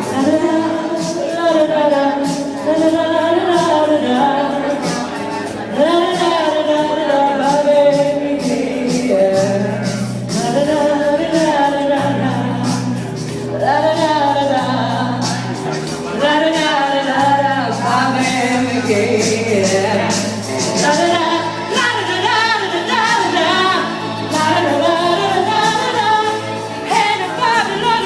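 A woman singing over a karaoke backing track with a steady bass line.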